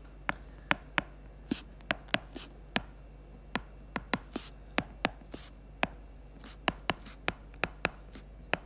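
Stylus tapping and scratching on a tablet screen during handwriting: irregular sharp clicks, two or three a second.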